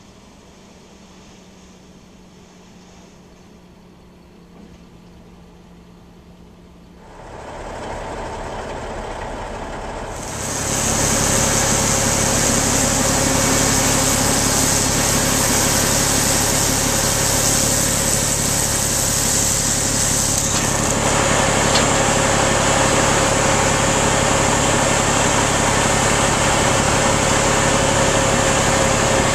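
A heavy engine running steadily. It is faint for the first several seconds, then grows louder in two steps, about 7 and 10 seconds in, and stays loud.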